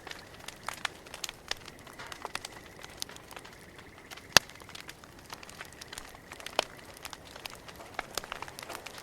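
Campfire crackling, with irregular snaps and pops from the burning wood and one much sharper, louder pop about four and a half seconds in.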